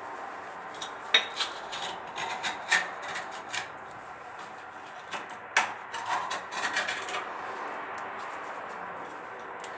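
Hand repair work: irregular rubbing and scraping with sharp knocks and clicks, busiest in the first seven seconds, then quieter and steadier.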